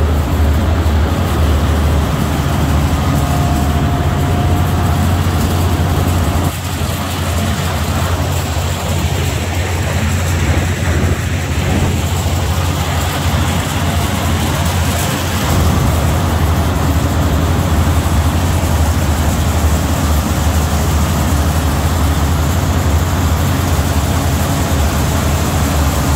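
Small oil rig's engine running steadily, a deep continuous drone, with a brief dip in level about six and a half seconds in.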